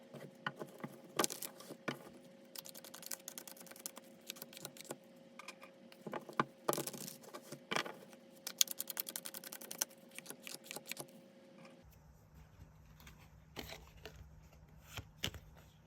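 Tarot cards being shuffled and handled: irregular card clicks and short rapid flurries of snapping cards, over a faint steady hum. About twelve seconds in, the background changes and the clicks become sparse.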